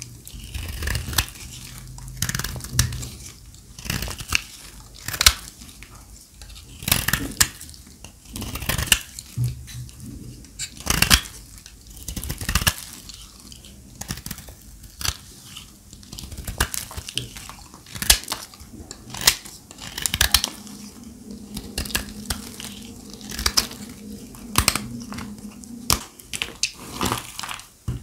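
Dry, brittle soap being cut with a knife: a run of crisp crunches and cracks, a strong one every second or two with small crackling between.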